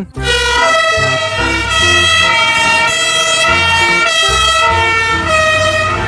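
Fire engine siren sounding: one loud, held high tone with strong overtones, wavering slightly and stepping down in pitch near the end.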